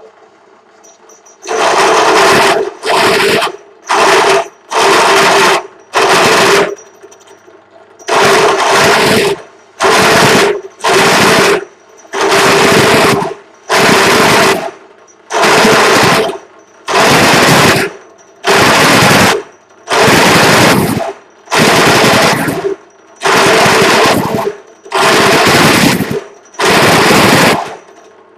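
Pedestal drill press boring a 25 mm toothed cutter dry into the cast-iron exhaust port outlet of an AM6 cylinder barrel, fed down slowly in repeated bites. About twenty loud bursts of cutting, each half a second to a second long, come with short pauses between them. The drill's motor hums steadily through the pauses.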